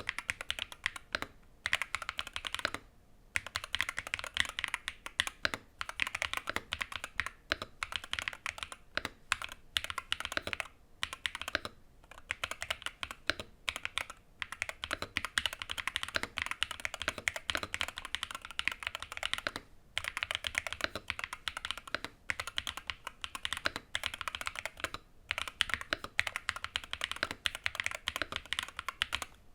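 Fast continuous typing on a custom 60% mechanical keyboard with Gateron Magnetic Green Dragon linear Hall-effect switches and PBT keycaps in an aluminium KBDfans Tofu 60 case with poron foam. Dense keystroke clicks broken by a few brief pauses.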